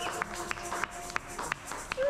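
Background music: held notes over a steady, light tapping beat of about three taps a second.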